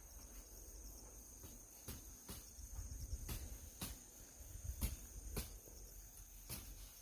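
A steady, high-pitched insect trill, with irregular faint clicks and low thumps throughout, the loudest about five seconds in.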